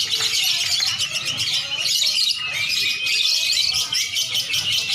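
Many caged lovebirds and oriental magpie-robins chattering and singing at once, a dense, unbroken tangle of high chirps and trills.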